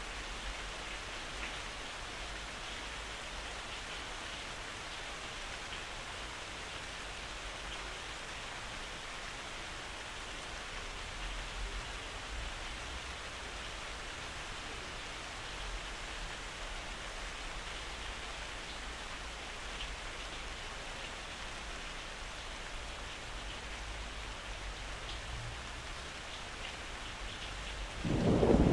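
Steady rain falling, with a loud rumble of thunder near the end.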